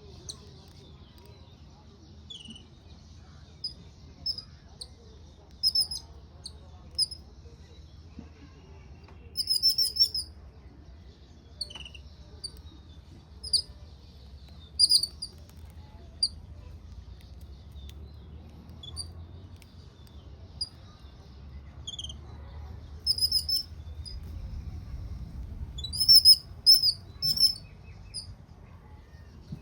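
Birds chirping: short high chirps scattered throughout, with a few quick rattling trills, loudest about ten seconds in and again near the end, over a faint low steady background hum.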